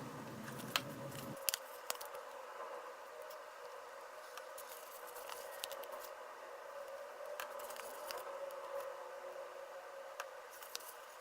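Faint handling sounds of stickers being peeled from their sheet and pressed onto a small vinyl Munny figure: scattered light clicks and crinkles over a steady faint hum.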